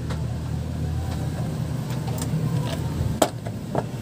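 Two sharp clicks a little over half a second apart, about three seconds in, as a bare circuit board is handled on a wooden workbench, over a steady low hum.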